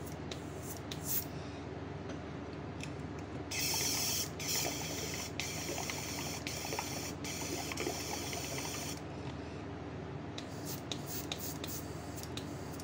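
Airbrush spraying paint, a hiss of air and paint. It comes first in a few short bursts, then as a long run of spraying broken by brief stops, and in short bursts again near the end, over a steady low hum.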